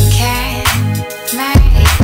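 Background music: a song with heavy sustained bass notes and recurring drum hits.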